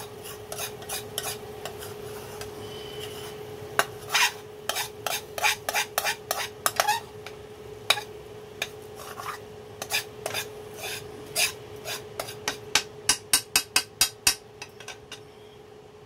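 A spoon scraping thick, fairly dry curry around and out of a metal frying pan, in repeated short strokes with a quick run of strokes near the end. A steady low hum runs underneath.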